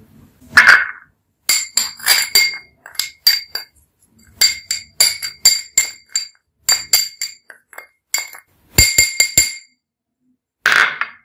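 Metal spoon clinking and tapping against a ribbed glass bowl while stirring a dry powder mix: many sharp, ringing clinks in irregular clusters. A louder, duller noise comes once near the start and again near the end.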